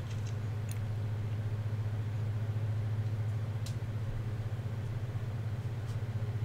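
Industrial sewing machine running with a steady hum while it slowly stitches vinyl binding onto the edge of thick, heavy car carpet.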